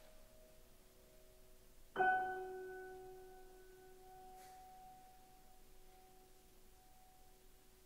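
Grand piano: faint lingering tones, then about two seconds in a single chord in octaves is struck and left to ring, fading slowly. It sounds like the closing chord of the piano nocturne.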